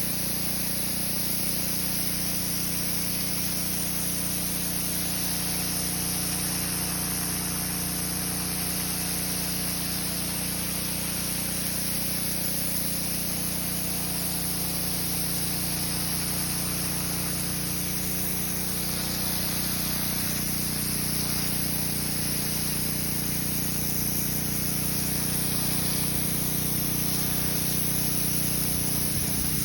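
Pressure washer running steadily, its jet nozzle shooting a hissing stream of water onto the concrete driveway over a constant motor hum. The hum shifts slightly in pitch about two-thirds of the way through.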